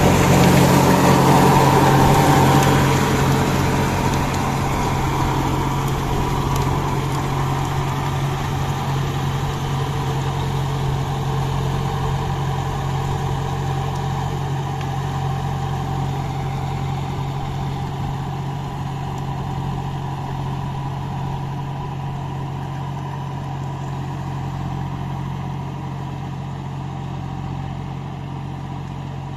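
A tractor's diesel engine runs steadily under load, driving a rotary tiller through a flooded paddy field, and grows slowly fainter as the tractor pulls away.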